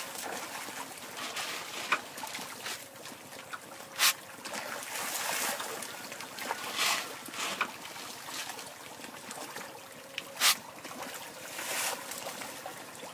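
Farmed catfish splashing at the surface of a pond as they feed: several short, sharp splashes a few seconds apart, the loudest about four and ten seconds in.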